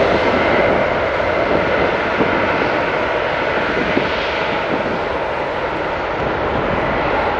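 Embraer E190 twin-engine regional jet landing: steady jet engine noise with a faint whine as it rolls out on the runway, nose lowering.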